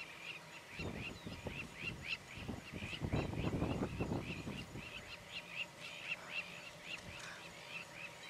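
Crowned lapwings giving rapid, repeated shrill alarm calls, several a second, the call these plovers make when a jackal or other predator moves close by. Bouts of low rumbling noise come and go under them in the first half, loudest about three seconds in.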